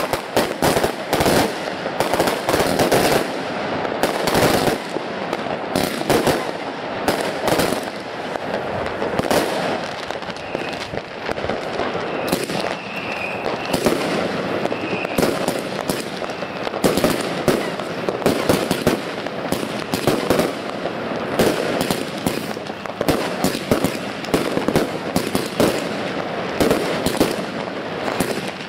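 Consumer firework cakes firing a fast, unbroken barrage of launch shots and bursting stars, many reports a second overlapping with crackle.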